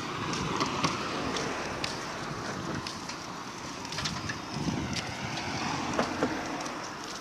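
Wind rushing on a phone's microphone, with scattered knocks and rubs from the phone being handled and swung about.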